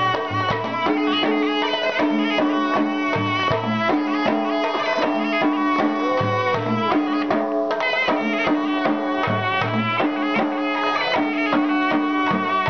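Live Chitrali folk dance music: a large double-headed dhol drum beats a steady rhythm under a held melody line that slides between notes.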